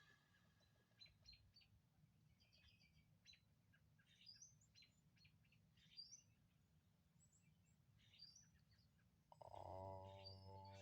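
Faint songbird chirps and twitters scattered throughout. About nine and a half seconds in, a man's low, steady chanted "om" begins, held on one pitch.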